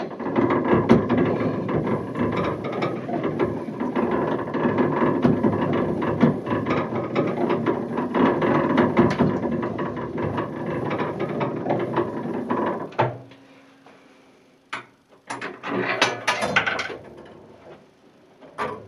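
A 19th-century Polyphon disc music box being wound: its ratchet and gears click rapidly for about thirteen seconds, then stop. After a short pause comes one more brief burst of clicking.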